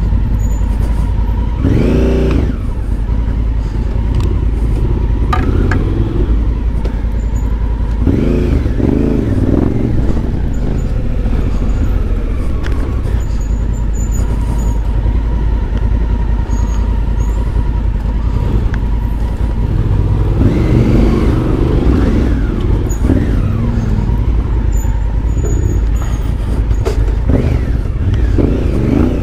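Adventure motorcycle engine running along a rough dirt single-track trail, with a steady low rumble and revving up and easing off several times. A few sharp knocks from the bike going over the rough ground.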